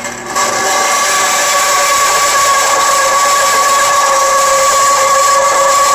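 Converted wood-cutting bandsaw, slowed to about 244 feet per minute, running with a 14 TPI carbon steel blade as a mild steel bar is fed into it. The sound is a loud, steady grinding hiss with a high ringing tone, and it builds up in the first half second.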